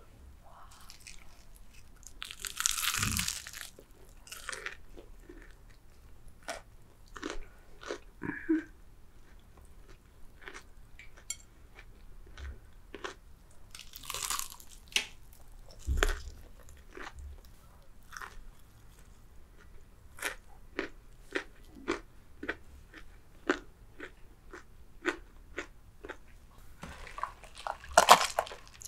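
Close-miked ASMR eating of crispy fried chicken: loud crunches as the battered skin is bitten into, about three seconds in and again about halfway, with crunchy chewing between. Near the end, a loud sip through a drinking straw.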